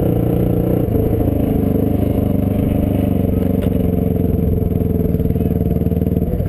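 ATV engine running steadily under throttle while riding over a dirt track, heard from on board, with a slight change in engine pitch about a second in.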